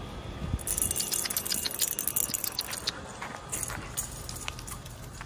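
Light metallic jingling: a quick run of small clinks, densest from about a second in to about three and a half seconds, then thinning out.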